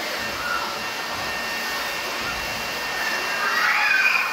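Handheld leaf blower running steadily, a rushing of air with a thin whine. Children's voices rise over it near the end.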